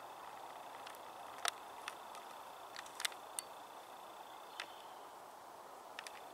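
Steady outdoor background hiss with a faint high steady tone that stops about five seconds in, broken by about nine sharp clicks, the loudest about one and a half and three seconds in.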